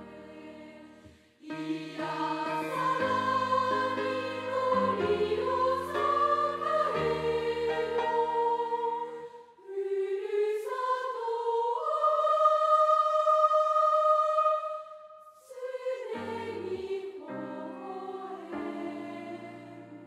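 Closing theme music with choir-like voices singing sustained chords. It breaks off briefly just after a second in, and in the middle a single line glides up and holds one long note.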